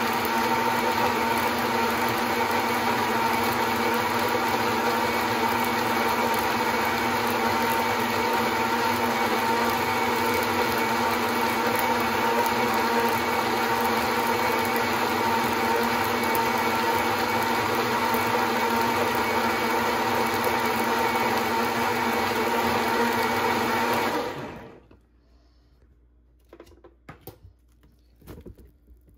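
Blendtec Total Blender running steadily on its Whole Juice program with a full jar of protein shake, then winding down and stopping about 24 seconds in. A few faint knocks and rustles follow near the end as the jar is lifted off the base.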